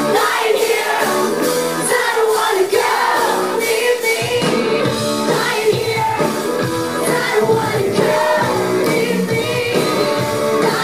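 Live rock band playing loud and steady on electric guitars, bass and drums, with female singing over it.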